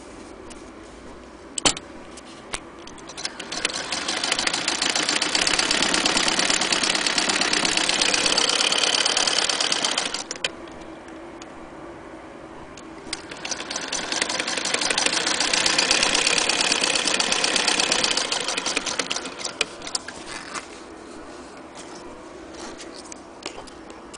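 Vintage West German Frister & Rossmann sewing machine stitching through fabric in two runs of about seven seconds each. Each run speeds up and then slows down, with a pause of a few seconds between them and a few sharp clicks around the runs.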